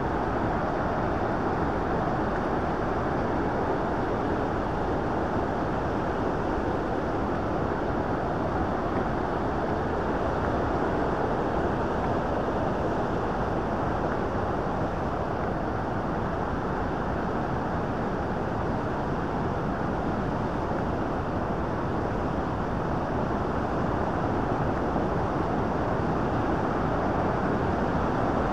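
Steady, unbroken rushing of the fast-flowing Bow River near Bow Falls.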